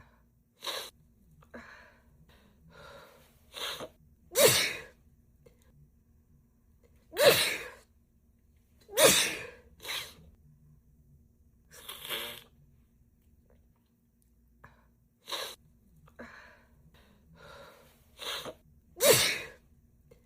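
A woman sneezing over and over in a sneezing fit: about seven loud sneezes one to three seconds apart, with shorter, quieter bursts between them.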